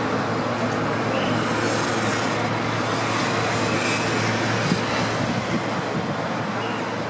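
Steady distant engine and traffic noise with a constant low hum.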